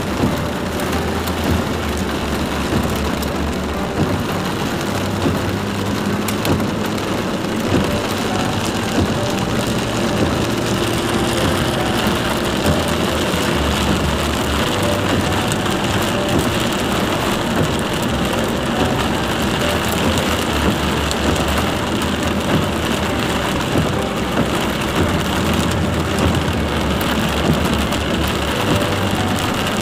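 Heavy rain pelting a moving car, heard from inside the cabin, over the steady hiss of tyres on a flooded road and the low hum of the engine.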